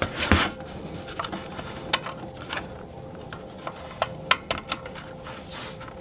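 Handling noise of wire leads and small terminal connectors being fitted onto the terminals of a plastic-cased Husqvarna 40 V power tool battery: soft rubbing with scattered light clicks. A faint steady hum runs underneath.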